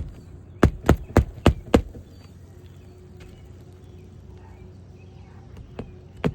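Hammer nailing down a replacement asphalt roof shingle: five quick, sharp strikes about a second in, then a single strike near the end.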